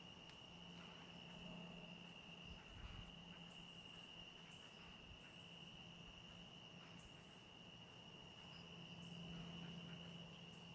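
Faint, steady chorus of crickets trilling at one high pitch, with a low steady hum underneath and a few brief high chirps.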